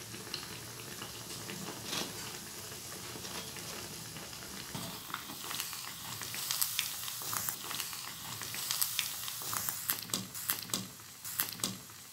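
Hot oil sizzling and bubbling as rice vadai deep-fry in a pot, with scattered crackles and pops that grow busier about halfway through.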